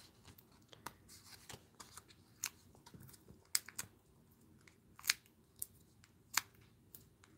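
Faint, sharp clicks and paper ticks at irregular intervals, a dozen or so, as foam adhesive dots (dimensionals) are peeled off their backing sheet and pressed onto cardstock and vellum hearts.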